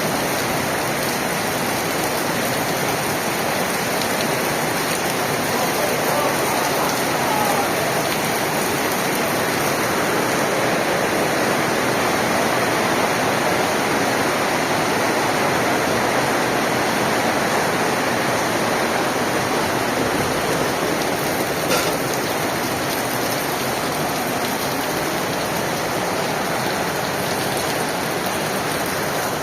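Torrential rain pouring down with water rushing, a steady dense hiss. A single brief click about three-quarters of the way through.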